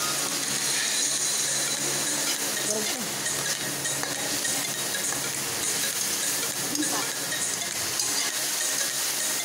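Chopped tomatoes, garlic and onion sizzling in hot oil in a metal pan, with a slotted metal spatula stirring and scraping across the pan now and then.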